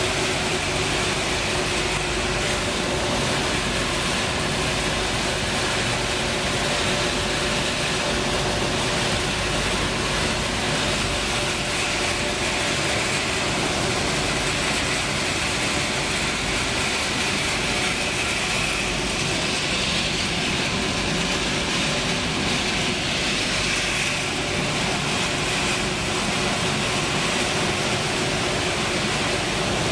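Dog-food production line machinery running: a steady, dense mechanical din of motors, fans and a rotating drum, with a couple of steady hum tones under it.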